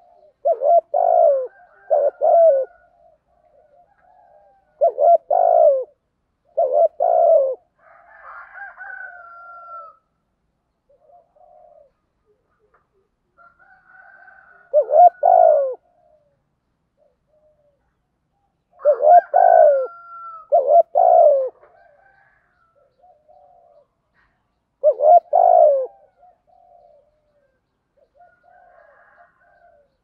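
Spotted dove cooing in the 'thổ' voice type kept for luring: short phrases of low coos, each phrase a few notes long, repeating every few seconds with pauses between, and a few fainter notes in the gaps.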